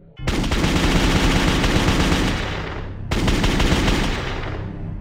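Two long bursts of rapid automatic gunfire. The first starts abruptly and dies away over about three seconds; the second starts suddenly about three seconds in and trails off.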